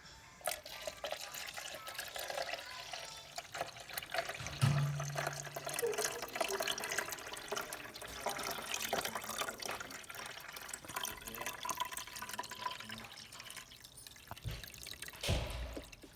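Water running and splashing, with a brief low hum about four and a half seconds in and a single thump near the end.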